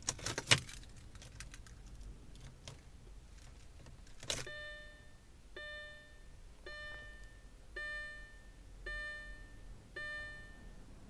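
Keys jangling and clicking into the ignition of a 2005 Audi S4, then a sharp click and the car's warning chime sounding six times, about once a second. No starter cranking follows: the power comes on but the engine does not turn over, the car's no-start fault.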